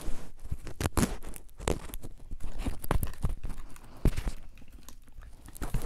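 Sticky slime being squeezed and stretched by hand, giving irregular small clicks, pops and crackles.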